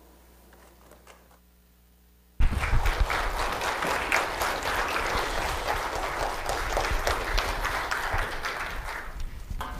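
Church congregation applauding: after a short lull, clapping breaks out suddenly about two and a half seconds in, holds steady, and tapers off near the end.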